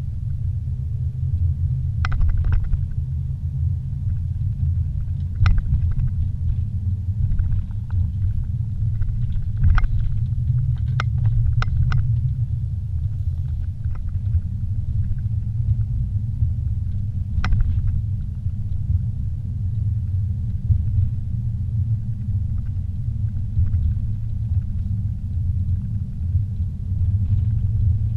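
Low steady rumble of a car driving along a paved street, heard inside the cabin, with a few short knocks and rattles here and there.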